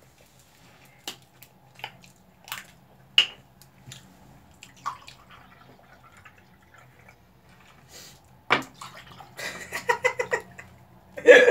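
Iced tea poured from a plastic bottle into glass tumblers, splashing and gurgling, loudest in a burst of pouring near the end. A few sharp clicks early on as the bottle cap is twisted and handled.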